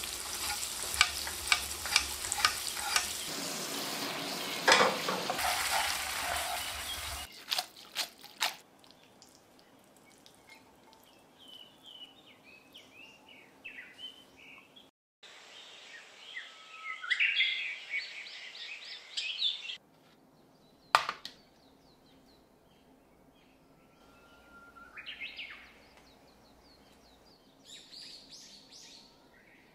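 Garlic and dried chilli frying in olive oil in a metal pan as a fork stirs them: a steady sizzle with sharp pops that stops after about seven seconds. Then birds chirp on and off in the background, with a single sharp tap about two-thirds of the way through.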